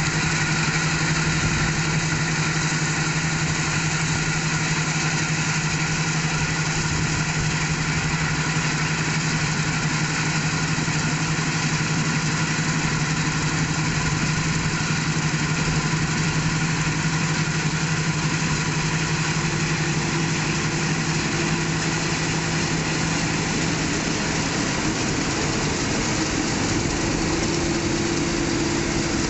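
Combine harvester running steadily under load, a constant engine hum with a strong low drone and machinery noise over it, unchanging throughout.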